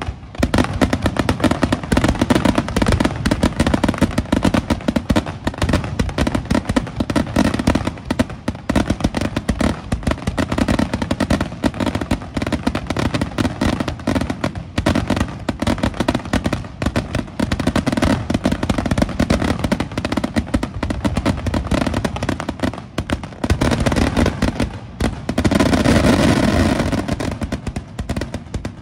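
Aerial fireworks bursting in a rapid, continuous barrage of bangs. The barrage grows densest and loudest near the end.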